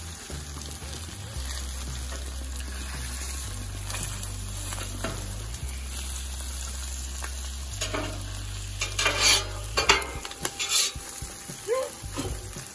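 Eggs frying in bacon fat in a pan, a steady sizzle, with a few louder, sharper moments about nine to ten seconds in.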